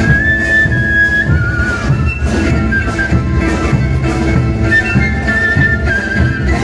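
A brass band plays live with a steady beat: brass carries a sustained melody over bass drums and crashing cymbals.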